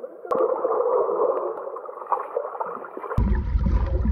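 Pool water sloshing and splashing around a camera held at the water's surface, heard muffled. About three seconds in it changes abruptly to a deep underwater rumble.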